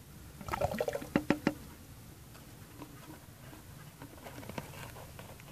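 Liquid splashing and dripping into a plastic bucket of mixed spray solution, with a short run of sharp splashes about a second in, then a few faint drips.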